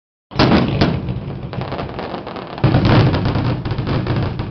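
Fireworks display going off: sharp bursts about half a second in, just before the one-second mark and again about two and a half seconds in, with dense crackling in between.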